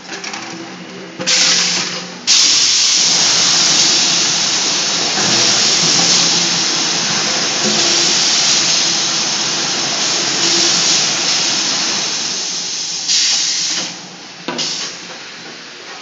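Automatic 5-gallon bottle brush washer running, its water jets spraying inside the cabinet with a loud steady hiss. The spray starts about a second in, breaks off briefly, then runs until it drops away two seconds before the end, with one short burst after.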